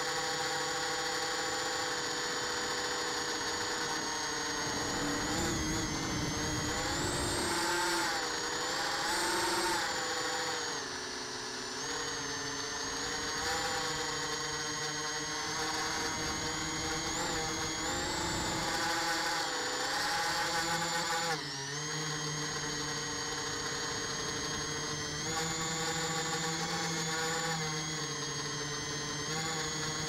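Small multirotor drone's electric motors and propellers whining, heard close from its onboard camera, the pitch rising and falling as the throttle changes. A sharp rise around 8 to 10 seconds in, and a brief drop about 21 seconds in before it picks up again.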